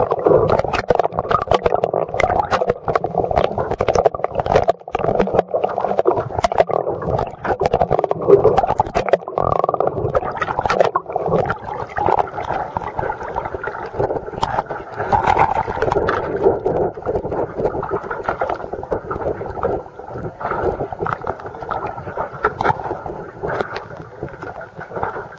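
Muffled rush of water with many small knocks and clicks, heard through a waterproof camera housing moving underwater. It eases off a little in the last few seconds.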